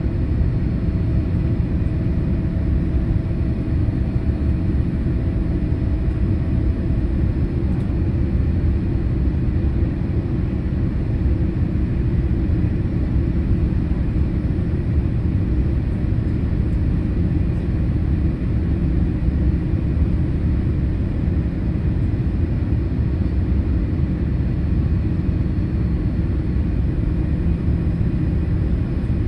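Steady low rumble of a Boeing 787-8 airliner in flight on approach, engine and airflow noise as heard inside the passenger cabin.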